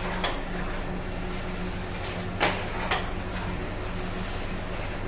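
Automatic paper plate (dona pattal) making machine running: a steady hum from its electric motor, with a pair of sharp knocks about half a second apart every two and a half seconds as the die press strokes.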